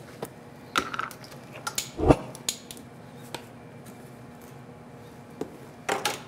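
Scattered small clicks and knocks of spice jars and measuring spoons being handled at a wooden counter beside a stainless steel mixing bowl, the loudest a dull knock about two seconds in.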